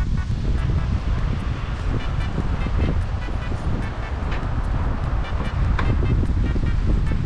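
Car driving: a steady low engine and road rumble, with wind buffeting the microphone.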